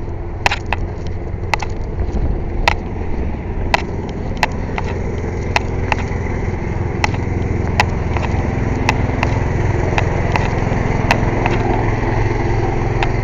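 An engine running steadily with a low rumble, getting a little louder partway through, with sharp irregular clicks about once a second over it.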